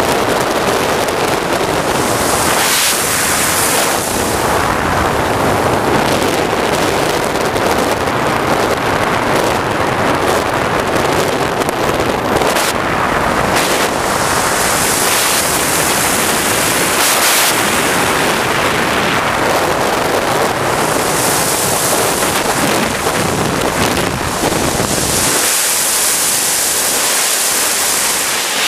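Steady, loud rush of wind and jet-turbine noise from a 3-metre radio-controlled sport jet in flight. A high hiss swells and fades several times.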